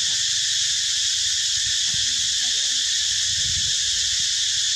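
Steady, high-pitched drone of an insect chorus in the trees, with faint low rumbles underneath.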